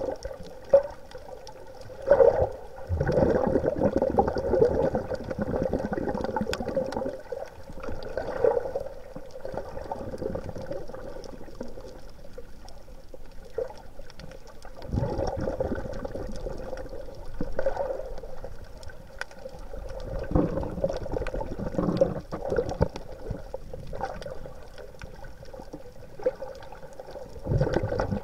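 Water sloshing and bubbling as heard underwater, muffled, under a steady hum, with irregular surges every few seconds.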